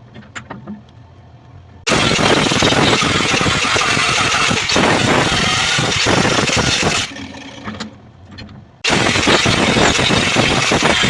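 Power grinder working on rusty steel. Two long stretches of loud grinding start abruptly, about two seconds in and again near the end, with a quieter gap of light clicks and taps between them.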